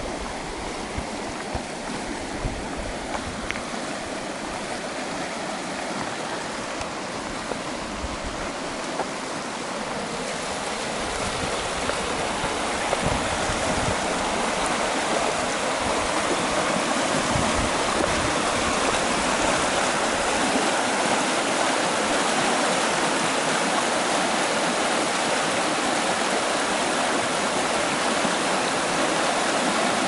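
Rushing water of a stream, a steady hiss and gurgle that grows louder about a third of the way in and then holds steady.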